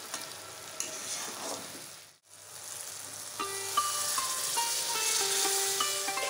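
Spiced potatoes sizzling in a steel kadai as they are stirred with a ladle. After a brief gap partway through, hot water is poured into the hot pan and the sizzling grows louder.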